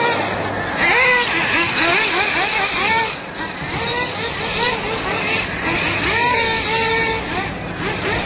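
Nitro RC cars' small glow-fuel engines whining at high pitch. They start at a steady pitch, then from about a second in rev up and down rapidly, over and over.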